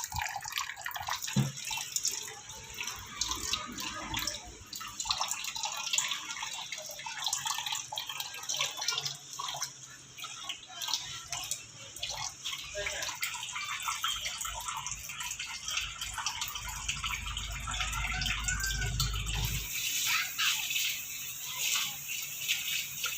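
Tap water running into a sink, splashing and dripping unevenly.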